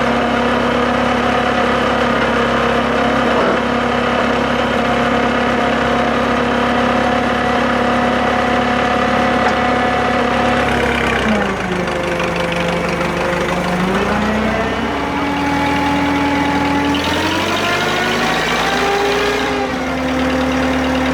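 Drott 85RM2 crane's engine running steadily, then its speed drops about halfway through and rises again in a few steps over the last several seconds.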